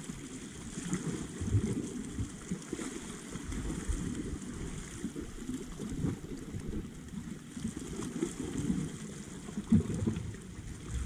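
Wind rumbling and buffeting on the microphone, over faint sea water washing against shoreline rocks.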